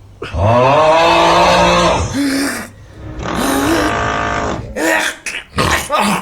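A man snoring heavily and loudly: two long drawn snores with a shorter one between them, then a run of short, sharp snorts and sounds near the end.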